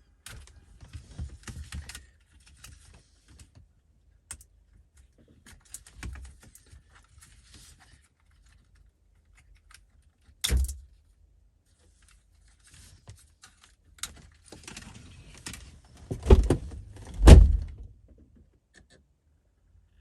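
Hands working in a car's centre console around the radio: clicks and plastic rattles from trim and wiring plugs, a heavy knock about halfway through, and two loud thumps near the end.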